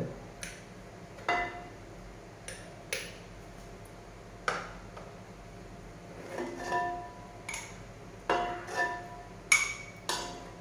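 A cup and spoon clinking against an aluminium pot while semiya payasam is scooped out: about ten sharp, irregular clinks, several with a brief ringing tone.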